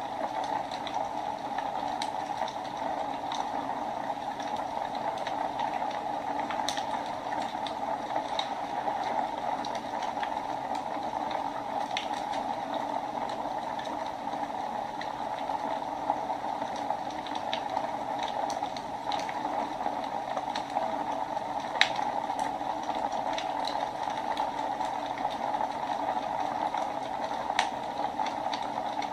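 Wood fire burning in a fireplace: a steady hiss with sharp crackles and pops at irregular moments.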